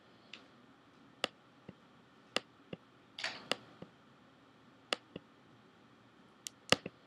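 Computer mouse clicking: about a dozen sharp, irregular clicks, with a short scraping rustle a little after three seconds, over a faint steady hiss.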